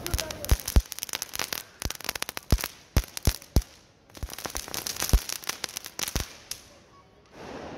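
Small ground firecrackers going off: a rapid, irregular run of sharp pops and crackles, a brief lull about four seconds in, then a second run that stops about six and a half seconds in.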